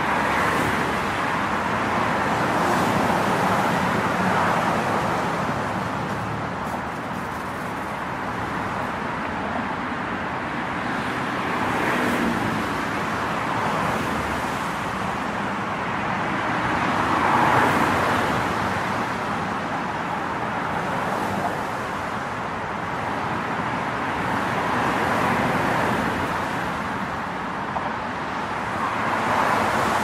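Road traffic noise: a steady rush of passing vehicles that swells and eases every few seconds, loudest a little past halfway.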